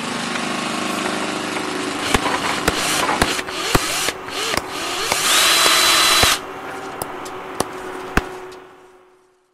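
Produced intro sound effects behind a logo animation: a steady mechanical whirr, like a power tool, punctuated by about eight sharp hits, with a louder noisy swell and a high tone that rises and holds in the middle before cutting off sharply, then fading out near the end.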